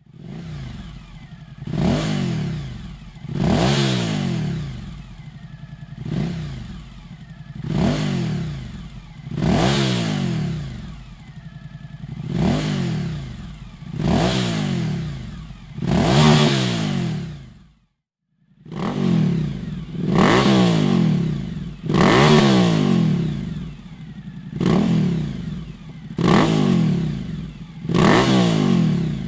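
Suzuki V-Strom 1050's 90-degree V-twin engine, through an aftermarket Dominator exhaust silencer, being revved in short throttle blips about every two seconds. Each blip rises in pitch and drops back to idle. The sound cuts out briefly about two-thirds of the way through, then the blipping resumes.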